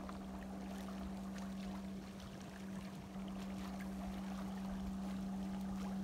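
Small waves lapping and trickling among shoreline boulders, with a steady low hum underneath throughout.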